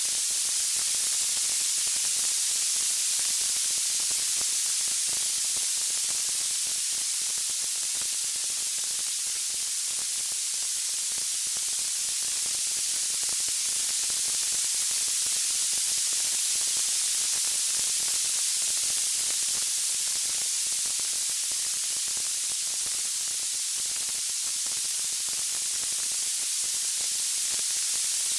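Steady white-noise hiss, strongest and brightest in the high range, even throughout with no crackles or pops.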